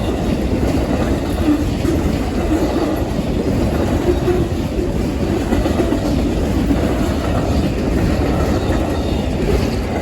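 Amtrak Auto Train's long consist of passenger and auto-carrier cars rolling past at speed, a steady rumble of wheels on rail.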